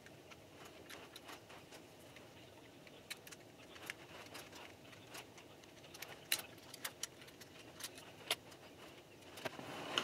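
Small metal clicks and ticks of a screwdriver turning the screws of a Mac Pro 2013 CPU board's processor retention bracket, scattered irregularly with a few sharper clicks in the second half. Near the end a louder handling clatter builds up as parts are put down.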